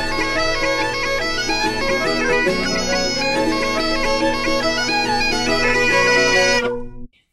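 Intro music: a melody played over a steady held drone note, cutting off abruptly near the end.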